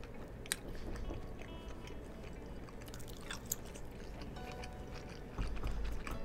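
A person chewing a mouthful of food, with a couple of sharp clicks of wooden chopsticks against a plate. A low rumble comes in near the end.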